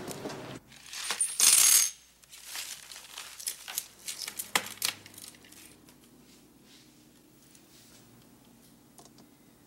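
A brief loud rush of noise about a second and a half in, then gold chains, rings and a watch clinking as they are set down and spread on a hard shop counter, a string of small metallic clicks that fades out after about five seconds.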